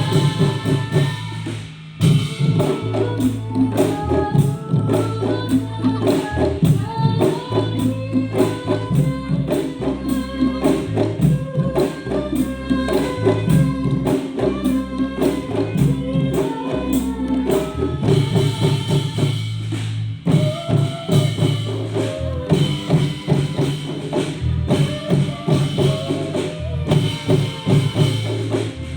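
Music played over a PA sound system during a sound check: a steady beat with bass and melody lines. There is a short break about two seconds in.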